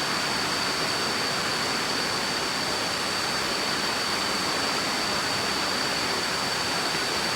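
Waterfall rushing steadily, an even roar of falling water, with a steady high-pitched whine above it.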